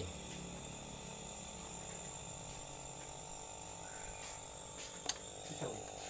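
A small used refrigerator compressor runs steadily as a vacuum pump, humming with a light mechanical rattle while it pulls a vacuum on a refrigerator evaporator. A single sharp click comes about five seconds in.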